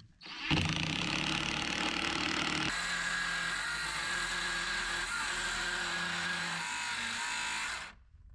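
Cordless power saw cutting through plank wall boards, running steadily under load; its note changes once about a third of the way through. It stops just before the end as the battery runs out.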